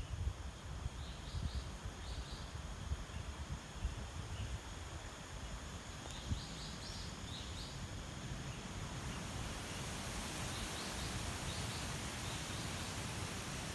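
Forest wildlife ambience: short groups of high chirping calls come a few times over a steady high insect-like hiss, which grows louder in the second half. A low rumble on the microphone sits underneath.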